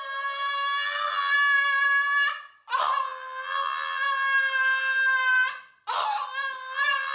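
French bulldog howling in three long, high calls, each about two and a half seconds with short breaks between. The first is already under way and ends about two seconds in; the last wavers up and down in pitch.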